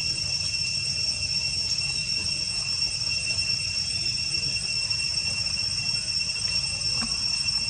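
Steady high-pitched insect drone, holding two constant tones, over a low rumble.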